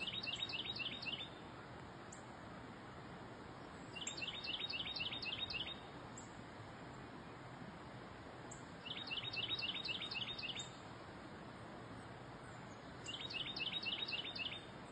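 A songbird singing the same short phrase four times, each a quick run of about six repeated clear notes lasting about a second and a half, with pauses of about three seconds between, over a steady low outdoor hiss.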